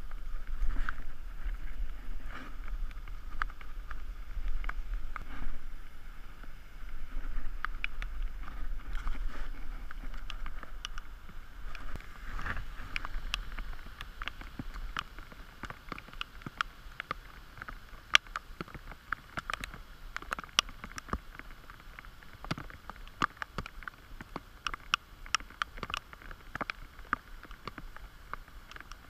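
Steady hiss of water spraying from a pond's aerating fountain. Wind rumbles on the microphone through about the first half, and irregular sharp ticks fill the second half.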